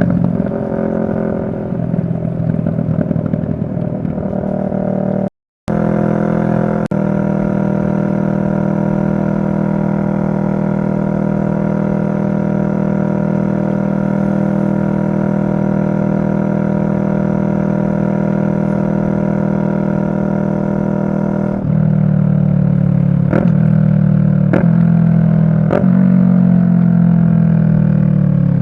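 2023 CFMoto 650NK's parallel-twin engine running under way, heard from on the bike. It holds a steady cruise for much of the time, then gets louder from about two-thirds in, with three quick clicks and steps in pitch about a second apart like gear changes. Near the end the pitch falls as it slows.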